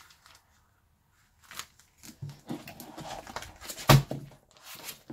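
Trading cards and the clear plastic pockets of a card binder being handled, rustling and crinkling, with one sharp thump about four seconds in as the binder is shut.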